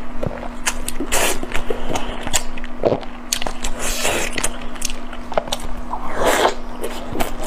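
Close-miked eating sounds: wet chewing, lip smacks and sharp mouth clicks, with noisy bites and chews of red-glazed chicken drumstick meat, one near the start, one about four seconds in and one about six seconds in. A faint steady hum runs underneath.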